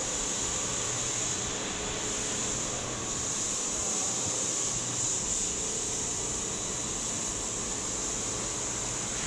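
Industrial machine running steadily: a fan-like whir with a high hiss and a low hum, unchanging throughout.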